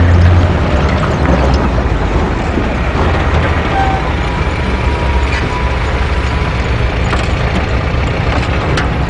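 Helicopter running on the ground: a loud, steady, low engine-and-rotor rumble that starts suddenly.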